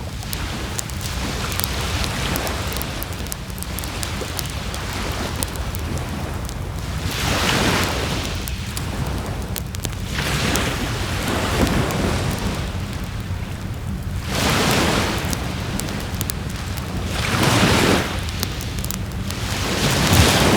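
Sea waves surging onto the shore every three to four seconds over the continuous crackle and snap of a wood bonfire.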